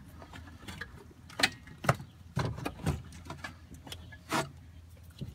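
Clunks and scrapes of the Tesla Model S's original 12-volt battery being twisted and worked out of its cramped compartment, its hard case knocking against the surrounding trim and brackets: about five separate knocks over a faint low hum.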